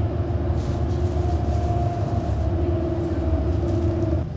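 Inside a tram: the low rumble of the running tram with a steady electric hum of two held tones that shift slightly in pitch. The sound drops suddenly near the end.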